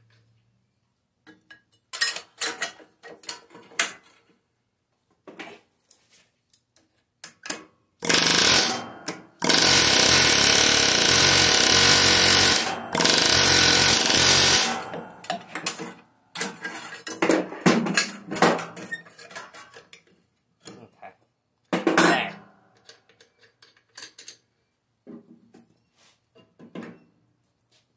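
Pneumatic air hammer hammering on the crankshaft end to knock the flywheel loose from its taper while a pry bar holds pressure under it, in three bursts of a few seconds around the middle. Scattered metal clanks and knocks come before and after.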